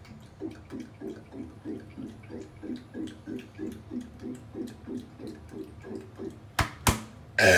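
A person gulping down a drink in quick, even swallows, about three a second, then two sharp knocks, and a loud burp begins at the very end.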